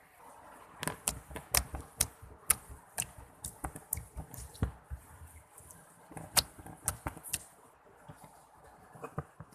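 Toy slime being squeezed and worked by hand, giving a quick irregular run of sharp clicks and pops that thins out after about seven seconds.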